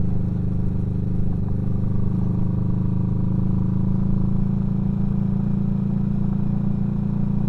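Kawasaki Vulcan S's 649 cc parallel-twin engine running steadily at an even cruising speed as the motorcycle is ridden along a gravel road.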